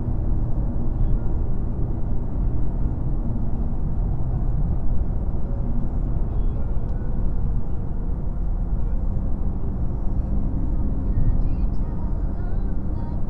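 Steady low rumble of road and engine noise inside a car cruising on a highway, picked up by the dashcam in the cabin.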